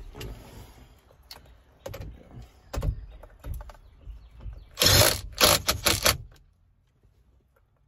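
Cordless drill with a 15/16 socket run in four short bursts about five seconds in, the first the longest, tightening the steering wheel's retaining bolt. Before that there are scattered clicks and knocks of tool handling.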